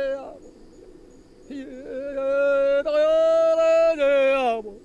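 A voice singing long, held notes at a steady pitch. A note ends just after the start; a second one begins about a second and a half in, lasts about three seconds and slides down in pitch at the end.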